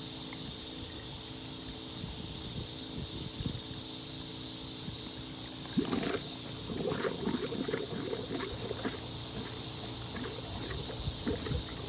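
Compressed air forcing water out of an in-ground pool's plumbing lines: irregular sputtering and spitting of air and water from an open return pipe, over a steady motor hum. The line is still being cleared of water.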